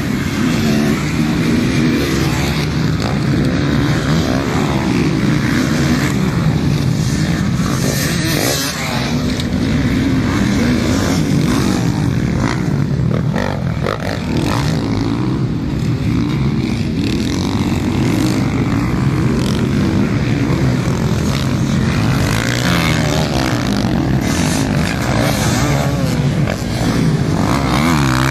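Motocross motorcycle engines revving hard and easing off as the bikes ride a dirt track, the pitch rising and falling over and over.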